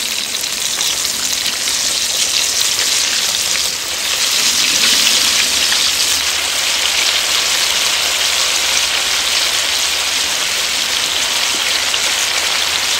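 Batter-coated chicken pieces deep-frying in hot oil in a wok, a dense, steady sizzle that grows a little louder about four seconds in. This is the second fry over high heat, which crisps the coating and skin.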